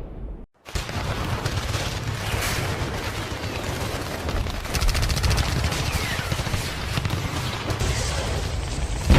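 Sustained, rapid gunfire of many shots crackling together, like a firefight with automatic weapons. It starts after a brief silence about half a second in.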